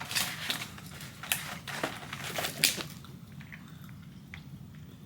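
Plastic packaging of a boxed chocolate assortment crinkling and clicking as it is handled, with a dense run of sharp crackles over the first three seconds, then a few fainter ticks.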